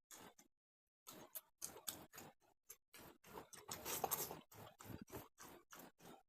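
Eating sounds of an egg curry meal: a quick, uneven run of small clicks and crackles from chewing and handling food, busiest in the middle.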